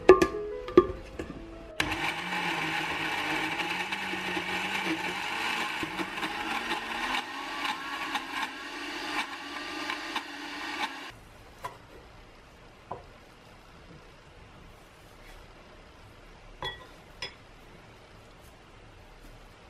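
A small electric motor running steadily for about nine seconds, starting and stopping abruptly, with a few knocks just before it starts and some faint clicks after it stops.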